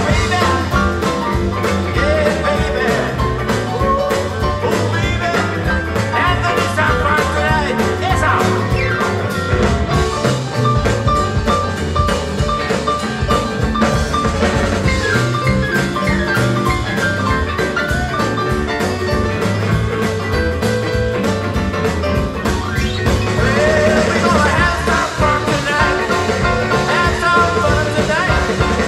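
Live rock-and-roll band playing at full volume: electric guitars and bass over a steady drum-kit beat, with a sung vocal line.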